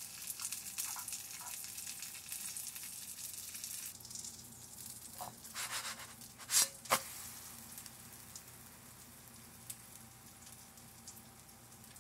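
Scrambled eggs sizzling in a nonstick frying pan while a fork stirs them, a crackly frying hiss. About four seconds in it changes to the quieter, steady sizzle of a pancake cooking, with a couple of sharp clicks near the middle.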